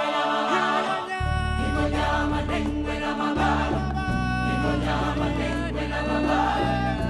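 Background music of choral singing, with deep sustained bass notes coming in about a second in.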